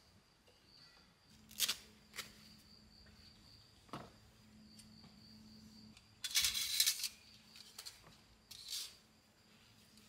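Handling noises at a campsite: a few short knocks and scrapes, then a louder rustle of paper being handled a little past halfway, and another shortly before the end. A faint steady high-pitched insect drone runs underneath.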